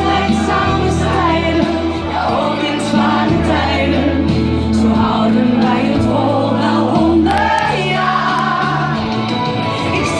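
Woman singing into a handheld microphone over instrumental accompaniment, with sustained bass notes and chords that change every couple of seconds beneath the sung melody.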